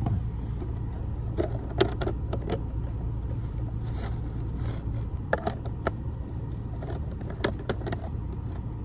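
Clear plastic bag and plastic container handled in the hands, giving scattered crinkles and clicks in short clusters, the sharpest about two seconds in. Under it runs a steady low hum from inside the car, with the air conditioning on.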